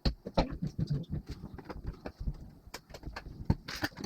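Irregular clicks and knocks of 3D printer parts and tools being handled and fitted together during kit assembly, several small strikes a second.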